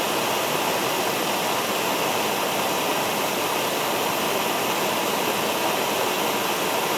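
A heating tool running with a steady, even rushing hiss as it heats the miter saw's bent steel locking pin so it can be bent back straight.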